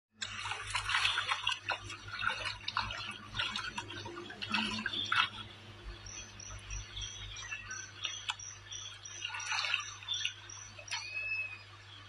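Irregular splashing and sloshing of river water around a person wading, with a small bird repeating a short high chirp about three times a second through the second half.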